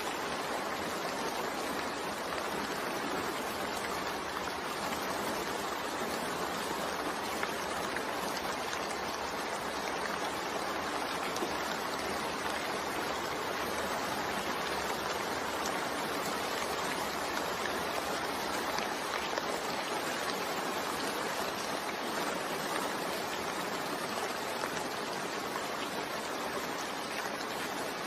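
Continuous rain blended with white noise: a steady, even hiss with no breaks or separate drops standing out.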